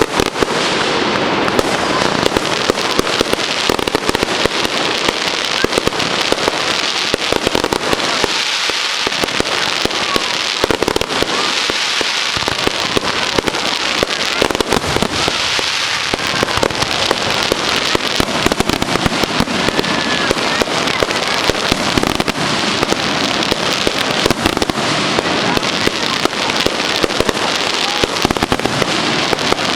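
Fireworks display: a dense, continuous barrage of crackling pops and bangs with no break.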